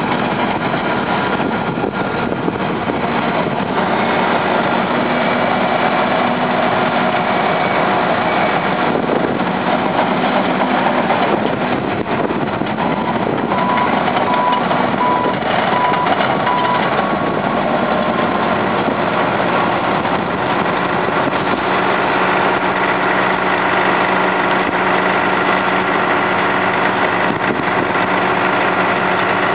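Heavy diesel engine of a Caterpillar crawler bulldozer running steadily under work. About halfway through, a backup alarm beeps half a dozen times.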